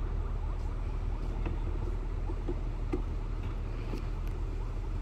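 A river tour boat's engine running steadily, a low even drone.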